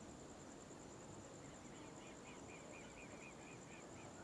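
Near-silent night ambience: a steady, evenly pulsing high-pitched insect chirr, with a run of about a dozen quick chirps, about four a second, starting a second and a half in and fading out.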